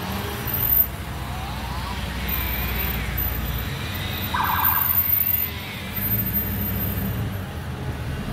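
Car road noise heard from inside the cabin, with a distant emergency-vehicle siren wailing faintly, rising and falling, and a brief pulsing tone about four and a half seconds in.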